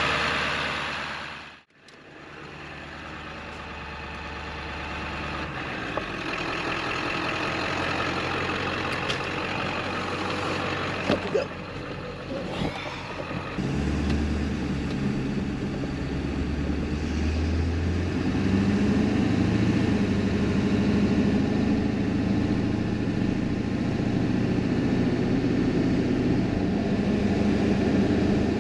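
Ford crew-cab pickup driving: steady engine and road noise that builds after a brief drop-out near the start, with a few sharp clicks around the middle. A deep, steady engine drone is then heard from inside the cab.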